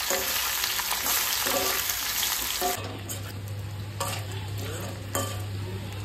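Arbi (taro root) frying in hot oil with cumin and carom seeds, a dense sizzle. About three seconds in, the sizzle cuts off abruptly, leaving a low steady hum and a few faint clicks.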